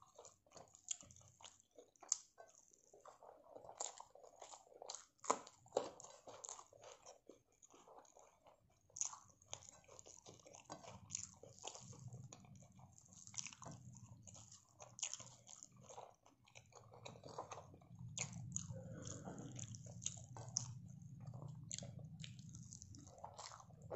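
Close-miked eating by hand: fingers mixing and squeezing rice against a plate, with many small clicks and crackles, and chewing and crunching of mouthfuls. A low hum comes in about halfway.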